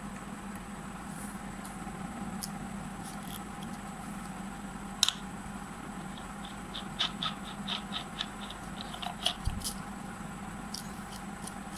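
Small handling clicks as a plastic backing pad is fitted and screwed by hand onto a threaded arbor mandrel on a small DC motor's shaft. There is one sharp click about five seconds in, then a run of light ticks and a soft thump, over a steady low hum.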